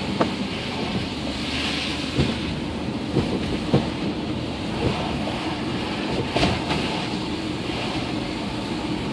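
Inside a moving car: steady engine and tyre rumble on a city street, with a few short sharp knocks and rattles scattered through.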